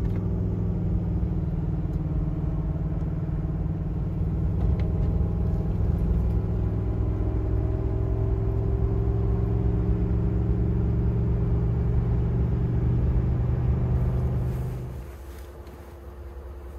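Pickup truck towing a trailer at highway speed, a steady engine and road drone. About fifteen seconds in, it gives way to a much quieter, wind-like background.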